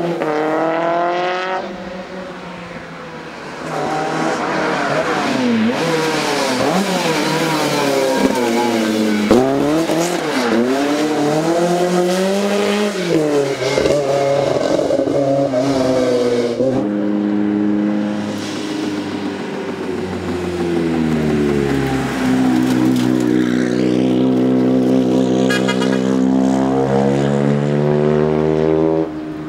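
Rally car engines revving hard on a special stage, pitch climbing and dropping as the drivers change gear and lift off, one car after another. Near the end a car pulls long and steadily with the revs rising.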